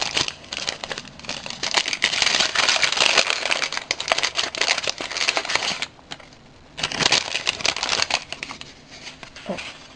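A small wrapped package being torn open and its wrapping crumpled by hand: crinkling and rustling, with a brief pause about six seconds in and quieter rustling near the end.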